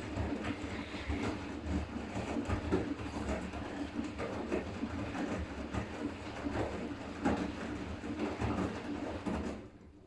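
Siemens iQ500 front-loading washing machine in its rinse cycle: the drum turns with a low motor hum while wet laundry and rinse water slosh and clatter irregularly. The sound stops abruptly near the end.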